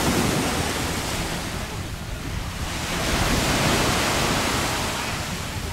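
Small surf waves breaking and washing up a sandy beach, the rush swelling twice about three seconds apart, with wind buffeting the microphone.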